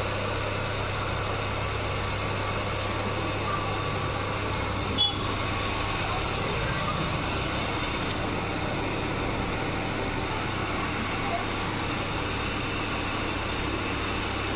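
Electric pedestal fan running with a steady hum and airy rush, with a brief click about five seconds in.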